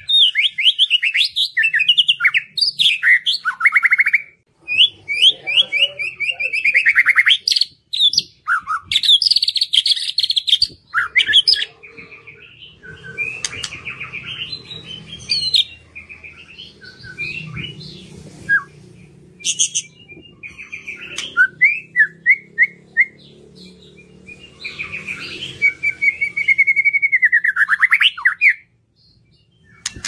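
White-rumped shama (murai batu) singing a loud, varied song of rapid trills and whistled phrases, with short breaks between phrases and a few sharp clicks. It is the bird's full song, used as a lure to get other shamas singing.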